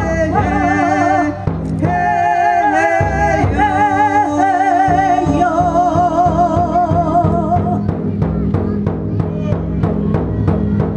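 A voice singing long, wavering notes with vibrato over a low held tone. About eight seconds in the singing stops and taiko drums take over with even strikes, about three a second.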